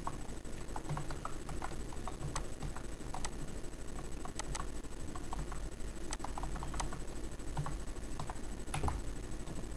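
Typing on a computer keyboard: short, irregular runs of key clicks as an IP address is keyed in.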